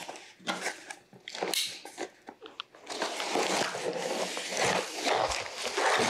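Cardboard packaging being handled: scattered knocks and scrapes, then from about halfway in a denser run of cardboard rubbing and sliding as an insert is pulled out of the box.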